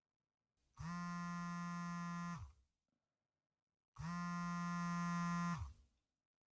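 Mobile phone vibrating on a wooden desk with an incoming call: two steady buzzes of about a second and a half each, about three seconds apart.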